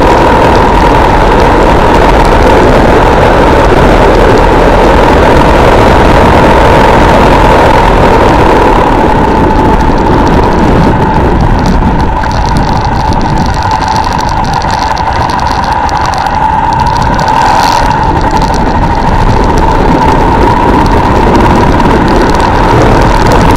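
Armstrong MT500 military motorcycle's single-cylinder engine running as the bike is ridden along, with steady wind and road noise on the bike-mounted microphone. The sound eases off for several seconds around the middle, then picks up again.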